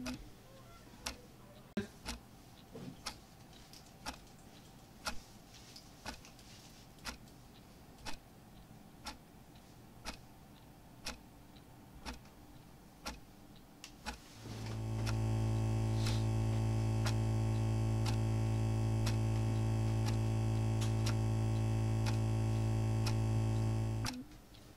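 A clock ticking faintly, about once a second. Past the halfway point a loud, steady droning tone with many overtones swells in, holds without change, and cuts off suddenly just before the end.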